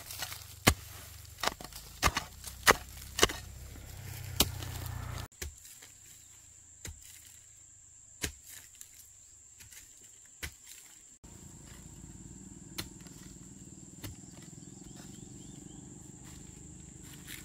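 Sharp chopping or knocking strikes, one or two a second for the first five seconds, then only a few scattered knocks over a steady high-pitched insect drone.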